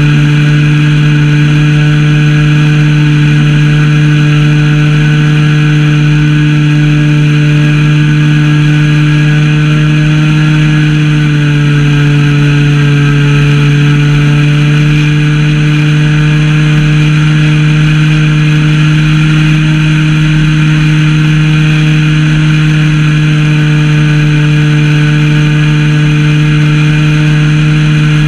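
Zenoah ZP 20 two-stroke gasoline engine of an RC model plane running steadily at cruising throttle, heard up close from a camera mounted on the plane. Its pitch drops a little about halfway through and then holds steady.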